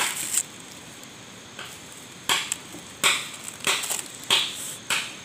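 Dry, roasted corn husk tearing and crackling as it is stripped back from the cob by hand: a series of short crisp rustles, about one every half to three-quarters of a second.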